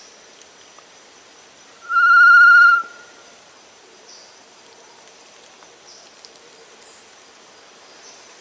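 One loud whistled note, slightly wavering and lasting under a second, about two seconds in: a tinamou-type call. The rest is the quiet forest background.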